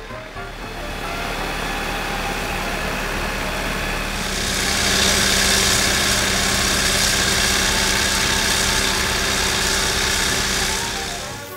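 Farm tractor engine running steadily while powering a tractor-mounted snowblower. About four seconds in, the rushing hiss of thrown snow grows loud as the machine comes close, and it eases off near the end.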